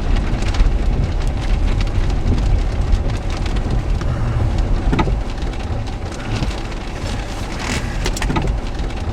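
Steady rain beating on a car's body, heard from inside with the vehicle's low rumble underneath, and a few sharp knocks about halfway through and again near the end.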